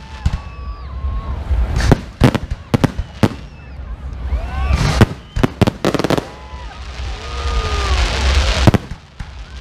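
Aerial firework shells bursting overhead in a series of sharp bangs, several in quick succession around the middle. Near the end comes a stretch of crackling hiss from glittering shells.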